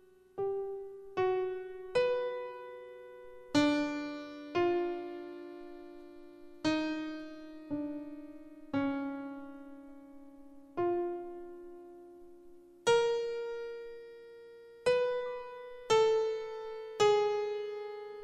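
Electric piano or keyboard played alone in slow, sparse single notes and two-note chords, each struck and left to fade, about one every one to two seconds.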